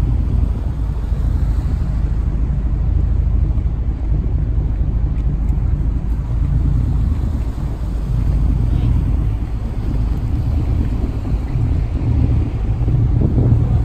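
Steady low rumble of a motor yacht under way, mixed with wind on the microphone.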